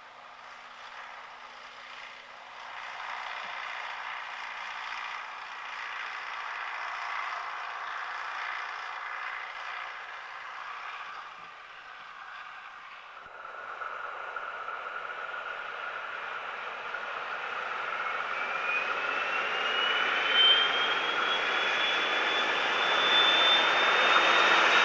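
Soviet-built 'Ludmilla' diesel locomotive approaching under power with a loaded sand train, its engine growing steadily louder. Over the last several seconds a high turbocharger whistle rises in pitch and grows louder.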